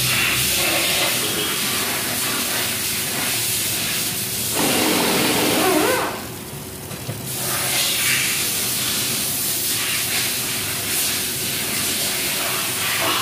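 Fluid draining in a steady hissing, splashing stream from an open drain-plug hole under a Ford 3.5 L engine. The stream goes quieter for about a second near the middle.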